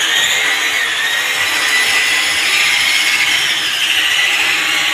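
Handheld electric drill running steadily under load with a high whine, drilling into the wall cabinet's mounting.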